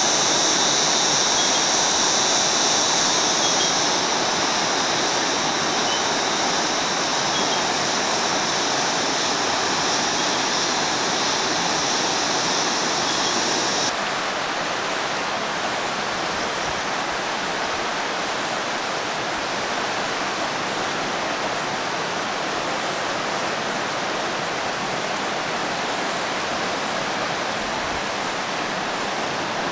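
Flooded river rushing over rocky rapids, a steady noise of water. A steady high-pitched drone rides on top of it and stops abruptly about halfway through.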